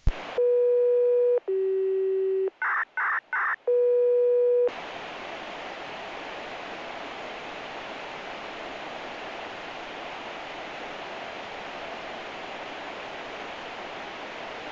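Radio receiver tuned to a Japanese municipal disaster-prevention radio channel: a string of signalling tones (a steady beep about a second long, a lower beep, three short higher bursts, then the first beep again) that opens the broadcast. About five seconds in, the tones stop and steady radio hiss from the open channel carries on.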